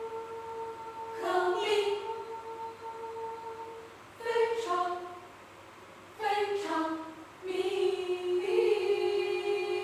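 Mixed choir singing a cappella: a long held note, cut into by short chord entries about a second in, just after four seconds and just after six seconds, then a full sustained chord from about seven and a half seconds.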